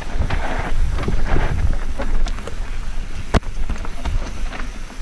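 Mountain bike riding down a rough dirt trail: wind buffeting the helmet-mounted microphone over the rumble of tyres on dirt and the bike being jolted, with one sharp knock about three and a half seconds in.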